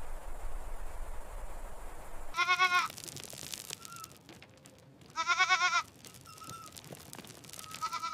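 Goats bleating: two loud, wavering bleats about two and a half and five seconds in, with fainter short calls between them. Before the first bleat a steady hiss with a low hum runs and then cuts off suddenly.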